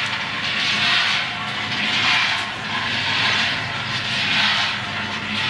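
Gas-fired mini peanut drum roaster running while roasting peanuts, with a low hum under a rushing noise that swells and fades about once a second as the drum turns.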